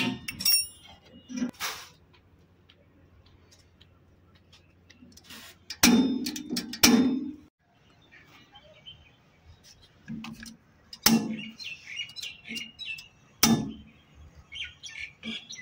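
Scattered metal clicks, knocks and rattles from handling the fittings and controls of a gas fryer, the loudest a cluster of knocks a little past the middle. Birds chirp repeatedly in the background through the last few seconds.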